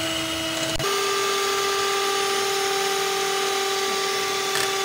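Electric hand mixer running steadily, its beaters whisking eggs and powdered sugar in a glass bowl, with a steady motor whine. About a second in there is a click, and the whine steps slightly higher in pitch.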